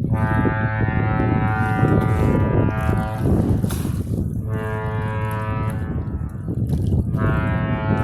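Great Lakes freighter horns sounding a salute: one long blast, then two shorter ones, deep and pitched. They are the Saginaw and the Michipicoten honking at each other to say hello as they pass.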